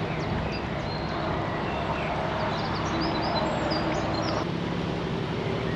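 Narrowboat engine running steadily under way, with a few bird chirps about halfway through.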